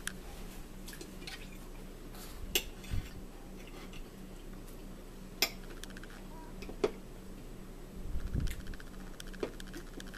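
A metal fork clinking and scraping on a ceramic dinner plate, with three sharp clinks about two and a half, five and a half and seven seconds in. A dull thump comes about eight seconds in.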